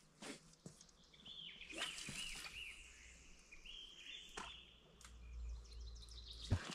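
A songbird singing a quick series of chirps and warbles, with a few faint clicks and a low rumble near the end.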